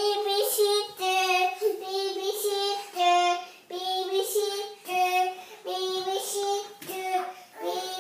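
A young child's high voice singing in a sing-song, short repeated phrases on a few held notes with brief pauses between them.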